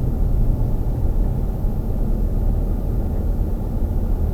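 Wind buffeting the microphone: a loud, gusty low rumble that never lets up.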